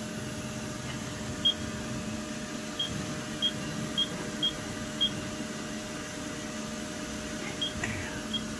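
About eight short, high electronic beeps, irregularly spaced, from the keys of a CNC machining centre's control panel as the spindle is jogged into position, over the machine's steady hum.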